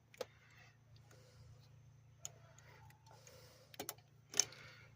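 A few sharp clicks and taps from hands working a metal fuel line and its fittings in the engine bay, spaced a second or two apart, with the loudest click about four and a half seconds in.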